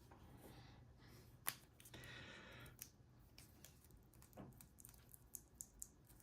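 Faint crinkling and clicking of a thin aluminium beer-can shim being folded by hand: a sharp click about a second and a half in, a short rustle just after, then scattered light ticks.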